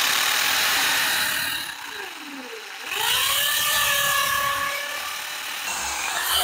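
Handheld corded electric drill boring a hole through a wooden branch. The motor runs loudly, slows about two seconds in as the bit bites into the wood, and whines back up to speed about a second later.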